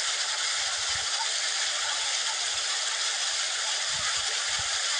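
Shallow stream water rushing steadily over rocks and pouring from bamboo pipes into a stone-walled pool. There are a few soft low thumps about a second in and again around four seconds.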